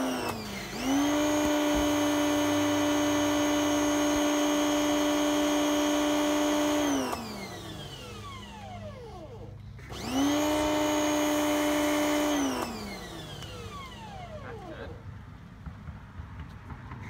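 Electric pressure washer motor and pump starting with a rising whine, running steadily with the hiss of the spray for about six seconds, then winding down with a falling pitch. It starts again about ten seconds in, runs for about two and a half seconds and winds down again. It cycles on and off as the spray-gun trigger is pulled and released.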